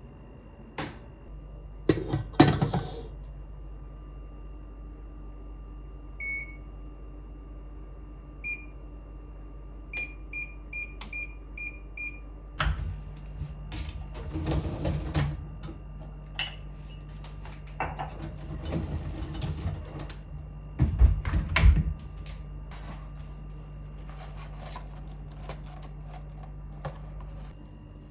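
Kitchen work sounds: a kitchen appliance hums steadily under clattering and knocking of handled items. It gives short electronic keypad beeps, first singly and then six in quick succession. The hum cuts off near the end.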